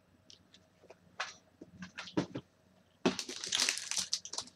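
Packaging being handled: a few scattered crackles and taps, then about a second and a half of dense crinkling and rustling from about three seconds in.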